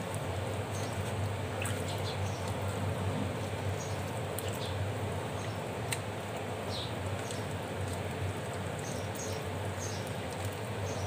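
Hands squishing and turning raw fish pieces coated in wet spice paste in a plate, giving scattered faint squelches and small squeaks over a steady low hum.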